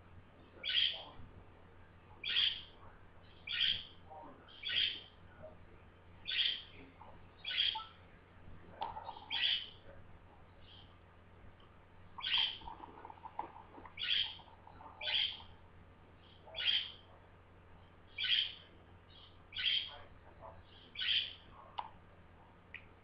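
Budgerigar (parakeet) calls: short, sharp, high calls repeated about once every second and a half, with a brief pause near the middle.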